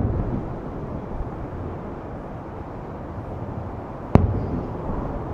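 Aerial firework shells bursting in the distance: two sharp booms about four seconds apart, each followed by a rolling rumble of echo, over steady background noise.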